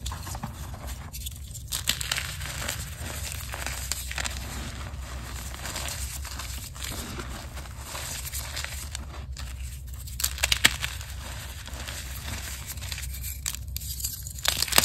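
Green reformed gym chalk crunching and crumbling between bare hands: a steady crumbly crackle as the powder and fragments are rubbed and squeezed, with a few louder crunches about ten seconds in and again near the end as chalk blocks are squeezed and broken.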